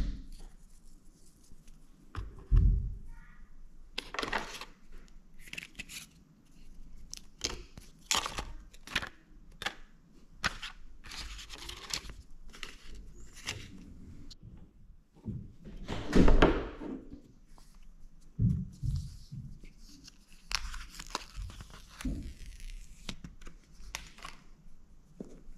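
Rustling and tearing of iPhone 15 packaging: paper wrap and inserts being handled and pulled off, with knocks of the cardboard box and tray on a wooden table. There is a low thump about two and a half seconds in and a longer, louder rustle about sixteen seconds in.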